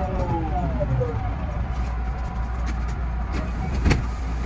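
JR West 207 series GTO-VVVF inverter and traction motors whining in several falling tones that fade out about a second in, over the steady running noise of the train. A sharp click about four seconds in.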